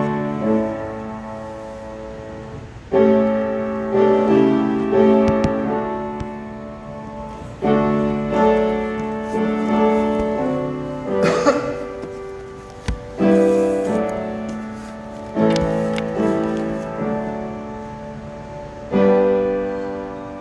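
Piano playing slow, held chords, with a new phrase struck every three to four seconds.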